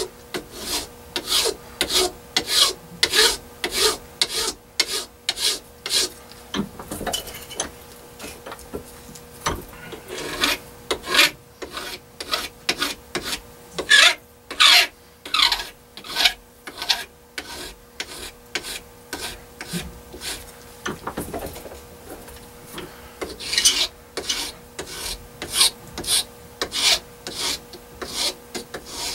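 Hand file rasping back and forth along the edge of a metal plate clamped in a bench vise, about two strokes a second, with a couple of quieter stretches. A finer-cut file is smoothing the edge to remove the saw and coarse-file marks.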